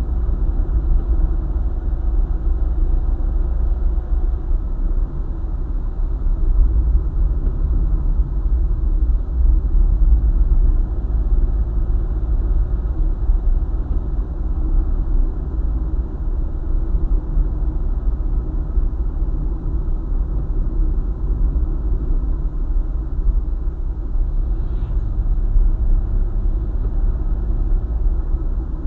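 Car driving at speed on a highway: a steady, deep rumble of road and engine noise.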